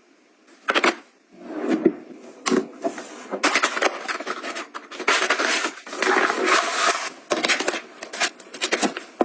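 Items being handled and arranged by hand: steady rubbing and scraping, broken by many small clicks and knocks as things are set down.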